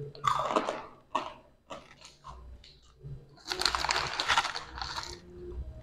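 Crisp crunching and crackling as a crunchy stick snack is bitten and chewed close to the microphone: short crunches early on, scattered small clicks, then a longer dense stretch of crackling in the second half.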